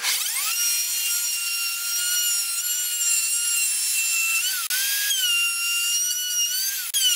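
Electric plunge router fitted with a flat straight grooving bit, cutting a rebate along a pine pallet board. It gives a high-pitched whine that spins up at the start, then holds steady, dipping briefly in pitch a few times as the bit takes load in the wood.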